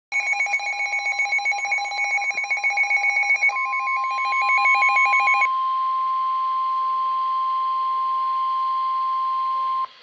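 Weather radio alert alarm: rapid pulsing electronic alarm beeps at several pitches for the first five seconds or so, over a steady single warning tone near 1 kHz (the NOAA Weather Radio 1050 Hz alert tone). The tone carries on alone and cuts off abruptly just before the voice warning begins.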